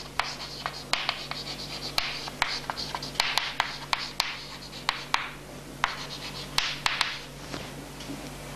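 Chalk writing on a chalkboard: scratchy strokes with many sharp taps where the chalk strikes the board, stopping near the end.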